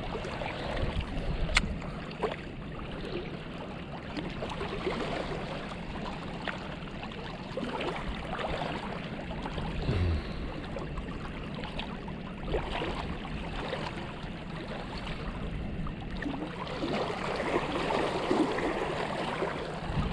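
Steady rush of water and wind at the shore, with scattered light clicks and taps, growing busier in the last few seconds.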